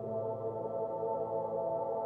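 Ambient music: a slow drone of several held, layered tones with no beat.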